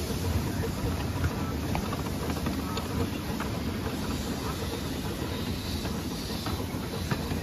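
Small Exmoor-built steam locomotive running along the track, heard from its footplate: a steady rumble of wheels on rail with light clicks and a hiss of steam.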